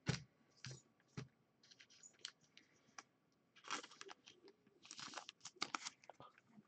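Faint rustling and light clicks of a trading card being handled and slipped into a clear plastic sleeve, with a soft knock just at the start.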